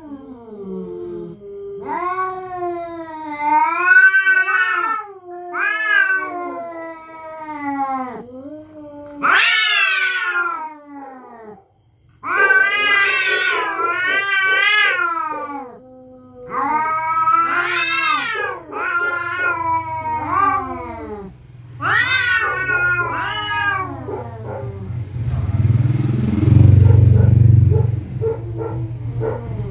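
Cats caterwauling at each other in a territorial standoff: a run of long, drawn-out yowls that rise and fall in pitch. For the first several seconds a low, steady growl runs beneath the higher wails, and a loud low rumble comes near the end.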